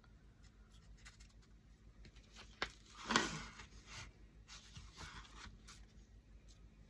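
Quiet handling of cardboard and wood craft pieces on a work table: faint taps and scrapes, with a sharp click and a brief rustle about three seconds in.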